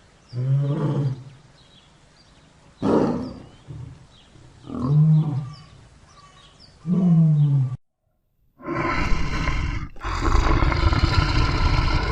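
Lion roaring: four separate deep calls spaced about two seconds apart. After a brief silence, a harsher, more continuous stretch of roaring takes over, which sounds like a different recording.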